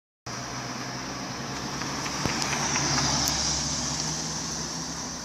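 Road traffic: a car going past, its engine and tyre noise growing louder to a peak about three seconds in and then easing off, over a steady low engine hum.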